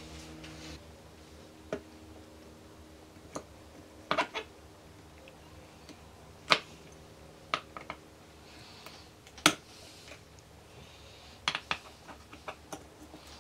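Scattered light metallic clicks and taps of pliers fitting a small clip onto a gear shaft in an open aluminium engine crankcase, irregular, with a few close together near the end.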